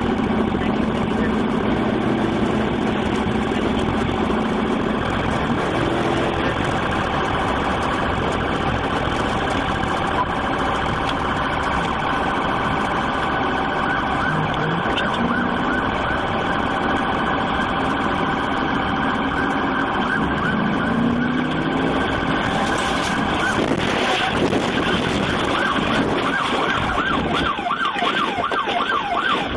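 Police car siren heard from inside a pursuing patrol car, over steady engine and road noise; a quick warbling siren tone stands out about halfway through and again near the end.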